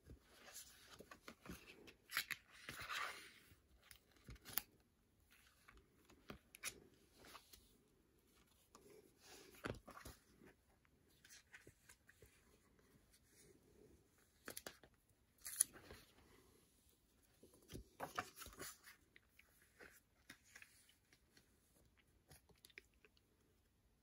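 Soft rustling and crinkling of plastic binder sleeves as photo cards are pulled from their pockets and slid into new ones, with scattered light clicks and taps. The louder rustles come about two seconds in, around fifteen seconds, and around eighteen seconds.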